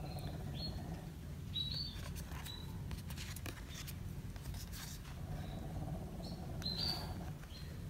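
Pet canaries chirping faintly in short calls, a few times, with the soft sliding and tapping of cards being handled.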